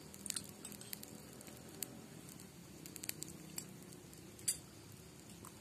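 Small scattered clicks and soft rustles of food being handled and eaten, with one sharper click about four and a half seconds in, over a faint steady low background hum.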